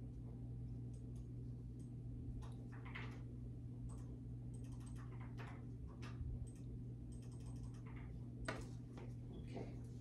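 Small, scattered plastic clicks and ticks from IV tubing and its roller clamp being handled while the secondary medication line is slowly primed, over a steady low hum.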